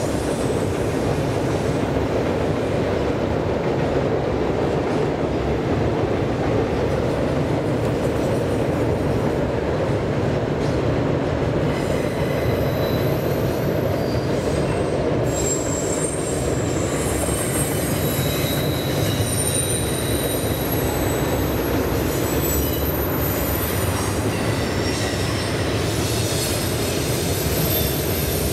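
Double-stack intermodal freight train rolling steadily over a steel trestle bridge: a continuous rumble of wheels on rail. Thin high wheel squeals come and go from a little under halfway through.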